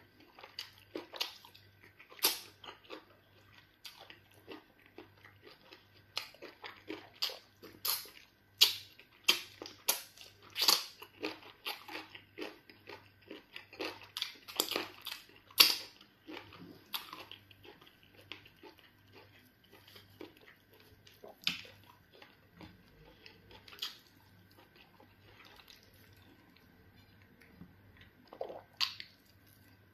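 Close-miked mukbang eating sounds: wet chewing and lip smacking of fufu and chicken black soup, a rapid run of sharp smacks and clicks that is busiest in the middle and thins out in the second half.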